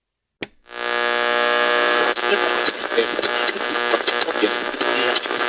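Outro music: a loud, buzzy held note with a fast beat running through it, starting just under a second in after a short click.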